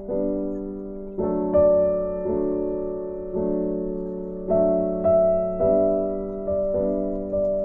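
Background music: a slow, soft piano piece, with notes and chords struck about once a second and left to ring and fade.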